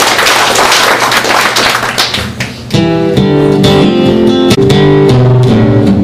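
Acoustic guitar strummed: quick, scratchy percussive strums at first, then full chords ringing out from about three seconds in.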